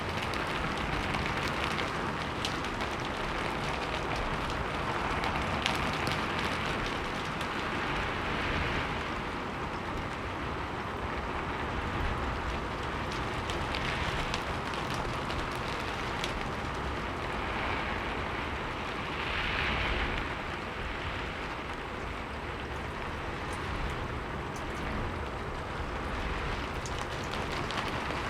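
Steady rain with scattered drops pattering, gently swelling and easing every few seconds.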